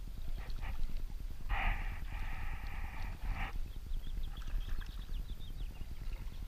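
A single animal call about two seconds long, starting about a second and a half in, over a steady low rumble of wind on the microphone.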